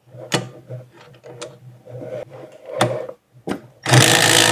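A few sharp knocks and clicks of metal parts being handled, then near the end a loud burst of about a second and a half from a cordless impact driver running a bolt in.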